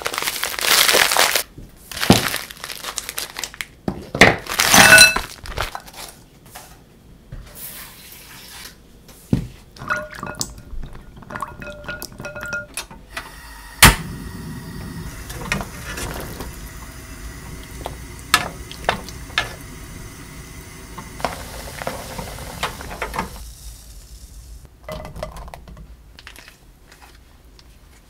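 Cooking preparation with no speech: plastic food packaging crinkles loudly at the start and again a few seconds later. Midway a single sharp knock comes as a frying pan is set on a portable stove, followed by a steady hiss for about ten seconds.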